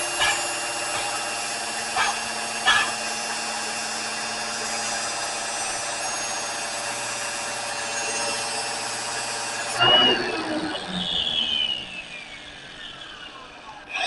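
Electric grinder running, with a few knocks as the steel flatter is worked against it; about ten seconds in it is switched off and winds down with a steadily falling whine, then starts up again right at the end.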